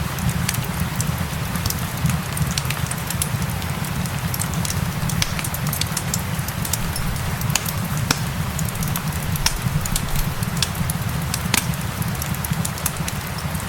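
Wood fire crackling, with many irregular sharp pops and snaps over a steady low rumble, mixed with the even hiss of falling rain.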